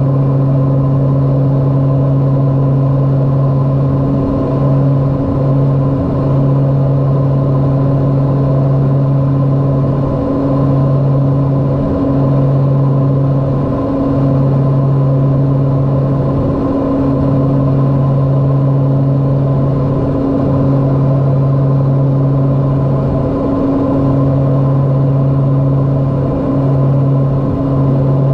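Twin turboprop engines and propellers of a LET L-410 droning steadily as heard inside the cockpit in flight, a low hum with a higher tone above it, wavering slightly every second or two.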